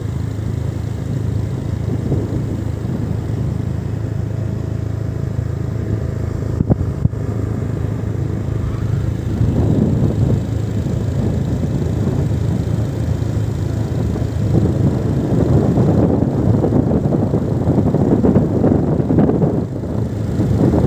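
Steady engine hum of a moving road vehicle, with rough wind rumble on the microphone that builds up from about nine seconds in and is strongest in the second half.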